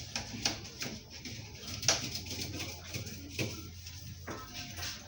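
Scattered knocks and light clatter of fridge parts being handled during cleaning, over a low steady hum.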